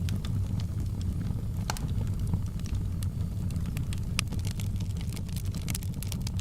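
Wood fire burning in a fireplace, crackling: irregular sharp pops and snaps over a steady low rumble of the flames, with one louder pop about two seconds in.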